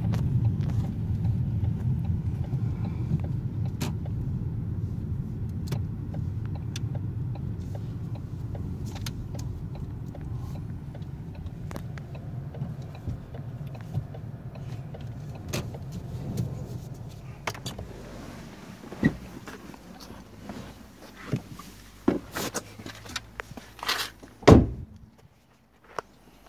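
Car running, heard from inside the cabin: a low engine and road rumble that fades as the car slows onto a driveway, then stops about 18 s in. A run of clicks and knocks follows as someone gets out, then one loud thud near the end as the car door is shut.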